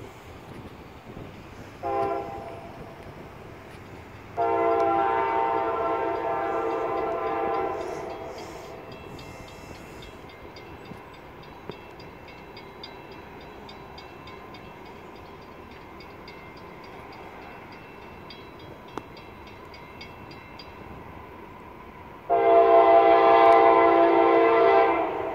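Freight locomotive's air horn sounding for a grade crossing as the train approaches: a short blast about two seconds in, a long blast of several seconds, then after a long pause another long blast near the end. A faint regular ticking comes between the blasts.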